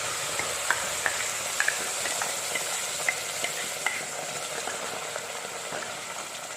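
Wet ground masala paste sizzling in hot oil and ghee in a pressure cooker, the sizzle slowly dying down. A spoon clicks against the pot several times as the paste is stirred.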